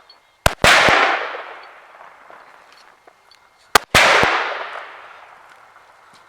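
Two gunshots about three seconds apart. Each is a sharp crack followed a split second later by a louder boom that rolls off over about two seconds.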